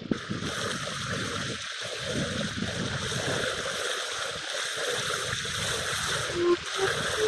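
A steady rushing noise, with one short xaphoon note near the end.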